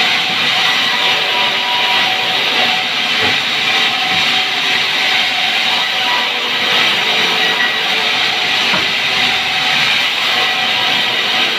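A sawmill's vertical band saw running and ripping through a pine log. It makes a loud, steady hiss with a few steady tones in it.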